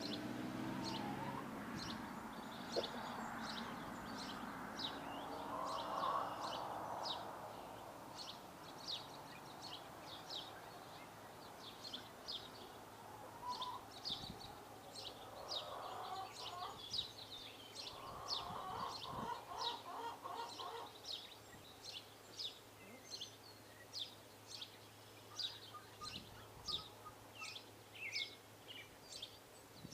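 Small birds chirping in short, high notes about once or twice a second, with a few longer, lower calls now and then.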